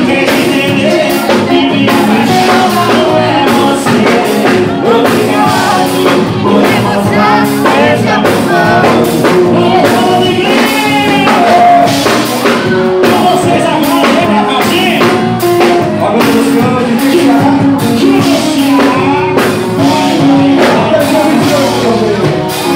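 A live band playing a song with a singer, loud and continuous, with drum hits throughout.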